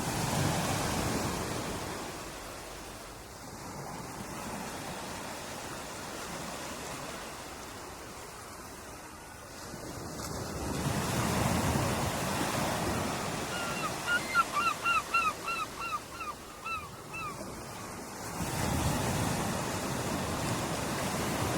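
Ocean surf: waves breaking and washing ashore in slow surges, swelling about three times, roughly eight seconds apart. Midway, a bird calls in a quick run of about ten short notes.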